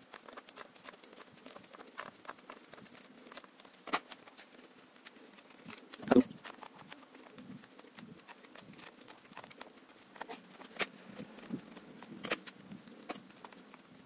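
Small scattered clicks and scrapes of a scissor tip working a small screw in the plastic steering wheel of a FlySky FS-GT3C RC transmitter, the scissors used in place of a hex key. The loudest click comes a little after six seconds in.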